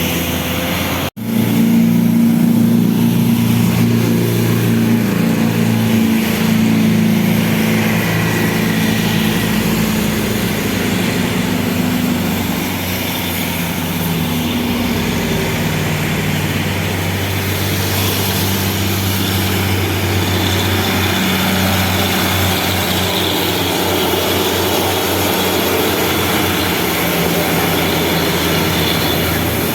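Buses running past on a highway: a steady drone of big diesel engines whose low pitches shift every few seconds as vehicles come and go, broken by a brief drop-out about a second in.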